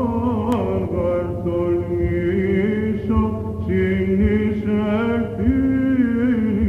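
Greek Orthodox Byzantine chant from the Holy Week Bridegroom service: a solo cantor singing a melismatic hymn in long phrases, the voice turning through small ornaments and glides.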